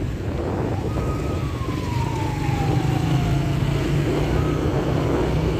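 Steady low rumble of a car's engine and tyres moving through traffic. A faint high tone holds about a second in, then slides down in pitch over about three seconds, with a brief return of the tone near the end.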